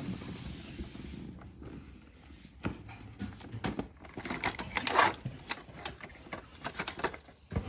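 A steady hiss that cuts off about a second in, then a scattering of sharp clicks and knocks, thickest around the middle, as of something being handled.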